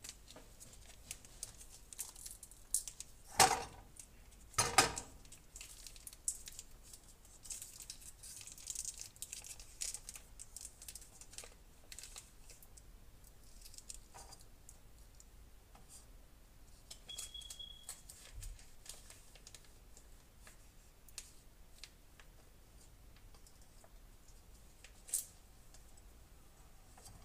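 Food packets being handled and opened: plastic and foil crinkling in irregular crackles, with two louder tearing rips about three and a half and five seconds in.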